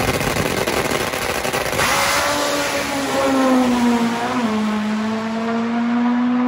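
A nitro-burning Top Fuel drag motorcycle launching and running down the drag strip. A loud, dense engine blast at first gives way after about two seconds to a steadier engine note, whose pitch steps down twice as the bike runs away.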